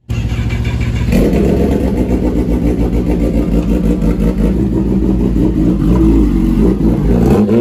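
Kawasaki ZX-10R's inline-four running loud at idle through a full SC-Project exhaust system, with a choppy, uneven exhaust note. It grows louder about a second in, and the revs rise briefly near the end.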